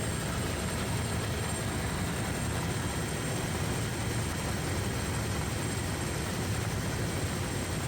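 Bell 212 helicopter in flight, heard from inside the cabin: its twin turboshaft engines and rotor make a steady low rumble with a constant high turbine whine.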